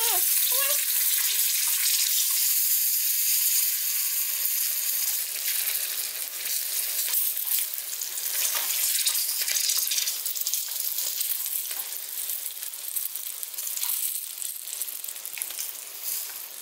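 Batter-coated coconut worms frying in hot oil in a pan: a steady sizzle with scattered small crackles and pops, and chopsticks stirring now and then. The sizzle eases a little over the last several seconds.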